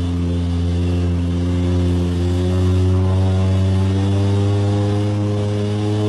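A 4x4's engine running steadily under load as it wades through a river, its pitch rising slowly.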